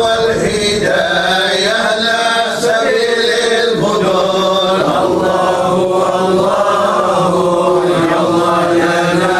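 A group of men chanting together, a devotional maulid recitation in praise of the Prophet, in long drawn-out phrases.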